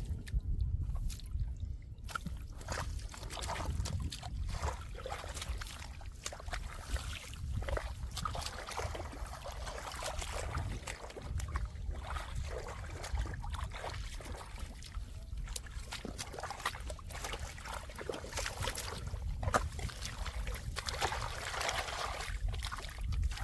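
Shallow muddy water sloshing and splashing in irregular spurts, from hands working through the mud of a drained rice field after catfish, over a steady low rumble.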